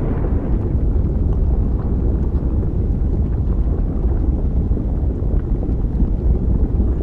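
Steady deep rumble of a lava-planet volcanic ambience, with faint scattered crackles above it.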